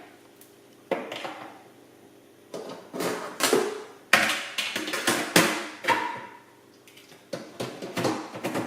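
Dishwasher filter parts being pushed and twisted back into the bottom of the tub: a string of plastic knocks and clicks, some in quick succession, with short quiet gaps between.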